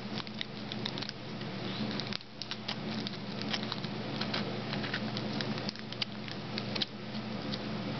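A child crunching seafood crackers: irregular small crunches and crackles, a few a second.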